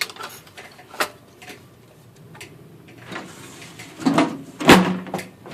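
Clacks and knocks of a typewriter and its carrying case being handled: two sharp clicks in the first second, then louder knocking and clatter near the end.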